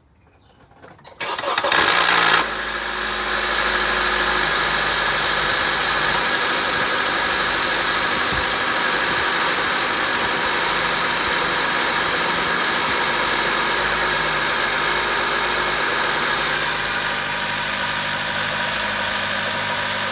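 2014 Honda Accord engine cold-started: it catches about a second in with a loud, harsh grinding rattle lasting under a second, then settles into a steady idle. The owner suspects a defective VTC actuator behind the grinding at cold start.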